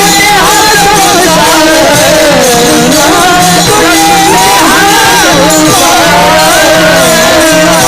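Devotional kirtan singing of an abhang, a voice over held steady drone tones, with small hand cymbals keeping a steady rhythmic beat.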